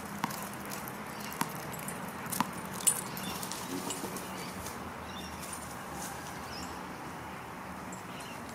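A few sharp taps on hard pavement in the first three seconds, the last the loudest, over a steady outdoor background hiss.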